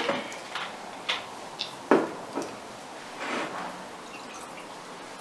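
A few light clicks and knocks of glassware and bottles, with a short, soft pour of liquid into a glass about three seconds in.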